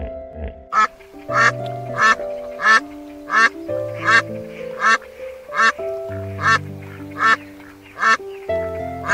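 A duck quacking over and over in an even rhythm, a little faster than one call a second, over soft background music with held notes.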